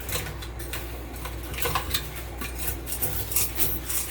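A cutting tool scraping and clicking against aquarium glass, trimming off globs of cured silicone sealant, in irregular short sharp strokes over a steady low hum.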